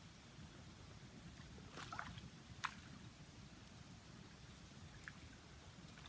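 Near silence: faint outdoor background with a few brief, faint clicks and ticks, one sharper click about two and a half seconds in.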